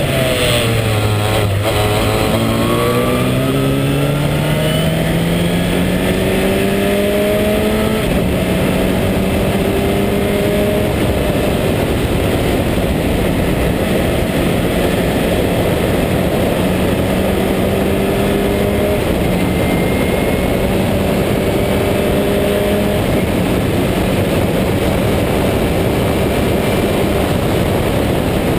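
Ford 2.0-litre four-cylinder engine of a March 83S Sports 2000 race car at race pace, heard from the open cockpit over heavy wind noise. The revs drop in the first second or so, climb over the next several seconds with a gear change about eight seconds in, then hold near steady at speed down the straight.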